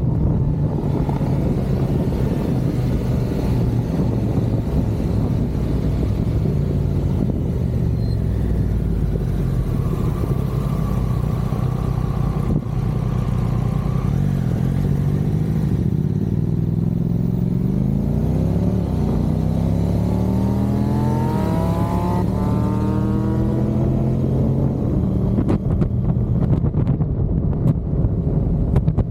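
Motorcycle engine running on the move, with loud wind buffeting the microphone. About two-thirds through, the engine note climbs as the bike accelerates, then holds steady.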